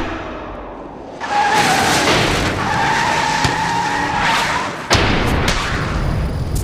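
Car tyres squealing in two long skids, each a steady high squeal over rushing noise. About five seconds in, a sudden hit gives way to a loud, low rushing noise.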